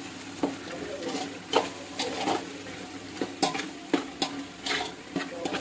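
Metal ladle stirring chicken and masala in an aluminium pot, with irregular scrapes and clinks against the pot's side and bottom, about one or two a second. A sizzle from the frying runs underneath.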